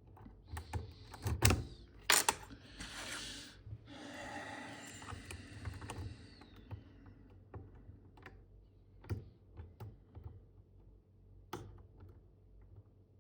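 Lock pick working the pins of an old Mul-T-Lock five-pin Euro cylinder with spool pins: scattered light metallic clicks, with stretches of scraping in the keyway about a second in and again from about four to seven seconds in.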